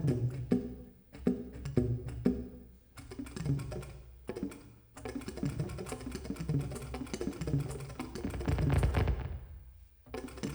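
Live experimental music made of sharp, woody struck percussion hits, each with a short pitched ring. It is spaced out at first and thickens into a dense, busy clatter after about three seconds, with brief breaks in between.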